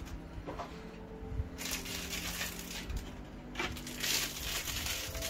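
Plastic packaging crinkling and rustling as a boxed 1/6-scale figure head is unwrapped. It comes in two spells, starting about a second and a half in, with a few light clicks.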